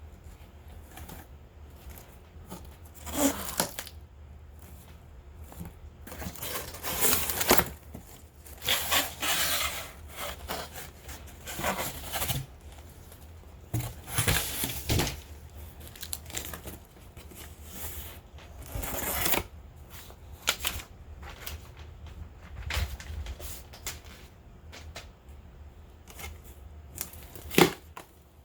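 Packaging being opened and handled by hand: irregular bursts of tearing and crinkling, with a single sharp tap or click near the end.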